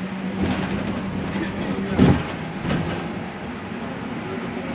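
Bus cabin noise while driving: a steady low engine drone with rattles and a few knocks, the loudest knock about two seconds in.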